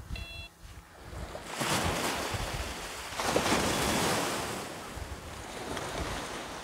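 Small waves washing onto a sandy beach in two swells, with wind buffeting the microphone. In the first half-second a cheap metal detector gives a short electronic beep.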